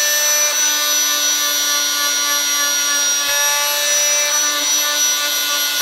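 Oscillating multi-tool running steadily with a high whine, its sanding pad working dried filler off the steel blade of a putty knife.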